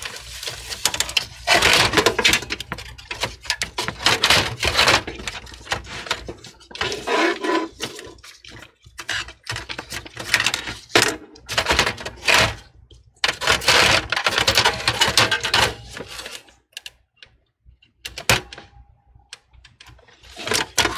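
Gloved hands handling a motherboard and parts inside a desktop PC case: uneven bursts of clicks, rattles and scraping of plastic and metal, with short pauses between them.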